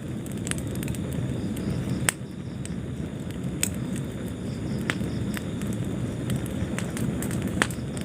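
Wood fire burning in a fireplace: a steady low rush of flames with a handful of sharp crackles and pops, a strong one about two seconds in.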